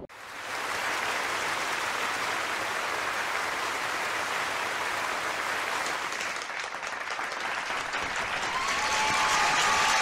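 Crowd applause, a dense steady clapping that fades in at the start and swells a little near the end, where a few thin high tones come in over it.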